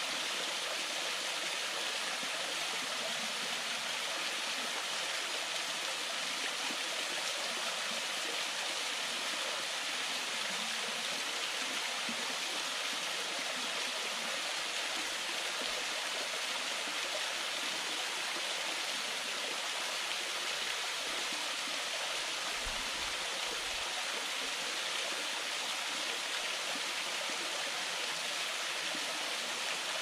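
Small stream waterfall splashing steadily down stepped rock ledges into a pool: an even, unbroken hiss of falling water, bright and with very little low rumble.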